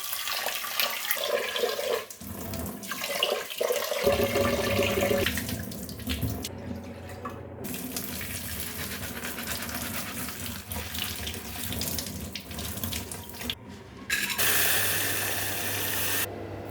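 Water running from a tap into a sink, the flow varying in strength, with a low steady hum underneath. Near the end a stronger rush of water cuts off suddenly.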